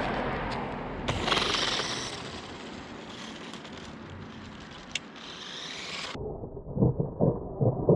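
Small electric 1:18-scale RC truck driving over rough ground on an over-volted 7.4 V battery, its motor and tyres running with a surge about a second in and a few sharp clicks. About six seconds in, the sound turns abruptly muffled and deep, with a run of heavy, uneven thumps.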